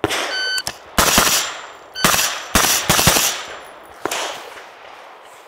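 A suppressed AR-style carbine fires a string of sharp shots in pairs. The outer pairs come quickly, and the middle pair is spaced more slowly for the far headshot, so the shooter's cadence changes with target distance.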